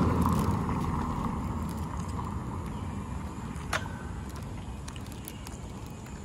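Outdoor street ambience: a low rumbling noise, loudest at the start and fading steadily over several seconds, with a single sharp click a little under four seconds in.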